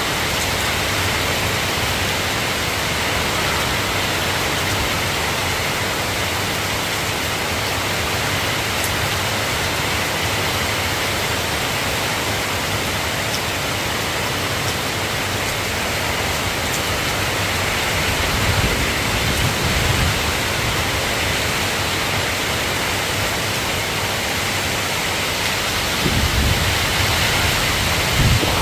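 Steady rain falling, an even hiss with no music. Twice, about two-thirds of the way in and near the end, a low rumble swells under it.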